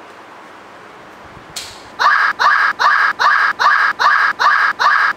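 A short, loud sound repeated evenly and identically about two and a half times a second, an edited looped sound effect starting about two seconds in. Before it, only faint room noise and a brief rustle.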